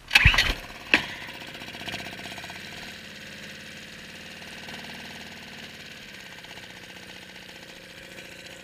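Suzuki DF2.5 single-cylinder four-stroke outboard pull-started. It catches at once despite its carburettor trouble, gives a sharp knock about a second in, then settles into a steady idle.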